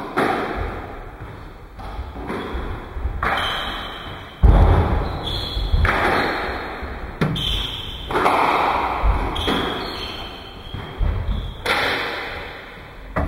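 A squash rally: the ball struck by rackets and hitting the court walls in a string of sharp thuds that ring in the court, about one every second or so, the loudest about four and a half seconds in. Brief high squeaks, likely shoes on the wooden floor, come between the shots.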